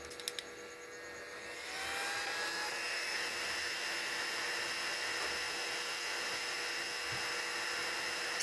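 Hot-air rework station blowing: its fan spins up about a second and a half in, then holds a steady hiss with a faint high whine. A few light clicks at the start.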